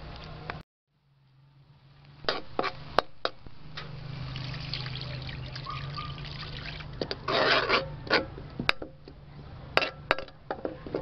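Coconut milk pouring into a steel wok of frying spice paste, followed by a metal ladle stirring and knocking sharply against the wok several times.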